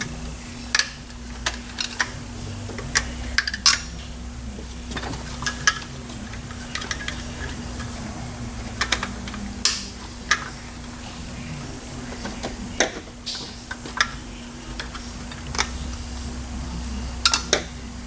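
Hand tools and metal engine parts clinking and tapping at irregular intervals while working on a Pontiac 400 V8 engine, over a steady low hum.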